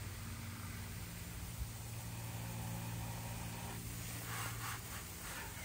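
Water spraying in several short spurts from a hand-held hose nozzle onto a motorcycle, starting about four seconds in, over a steady low engine-like hum.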